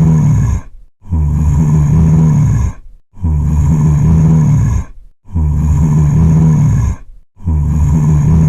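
Zombie groan sound effect: a low, drawn-out, guttural groan repeated in a loop, each groan about a second and a half long with a short break between, about four times.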